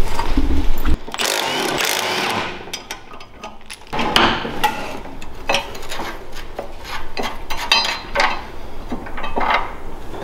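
Wrenches clinking and scraping on steel nuts as a mini bike's stamped-steel upper triple-tree clamp is unbolted, with knocks of metal parts being handled. Loudest in the first second, then scattered clicks and knocks.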